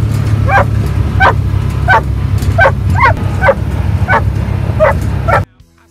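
Weimaraner barking repeatedly, about one bark every two-thirds of a second, while riding in an open vehicle whose low engine rumble runs underneath. The barking and rumble cut off abruptly near the end.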